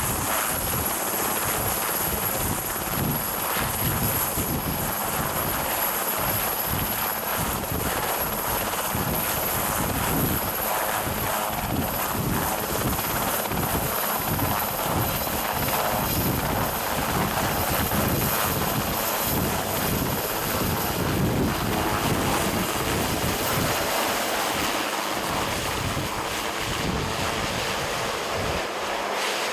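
Sikorsky VH-3 Sea King helicopter running on the ground with rotor chop and a steady high turbine whine, then lifting off and climbing away. The whine fades about two-thirds of the way through while the rotor wash noise carries on.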